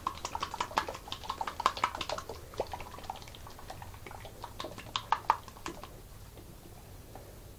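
Capped plastic motor-oil bottle shaken by hand, the oil sloshing and the bottle knocking, in a fast, irregular rattle of taps that stops about six seconds in: mixing oil additive into the motor oil.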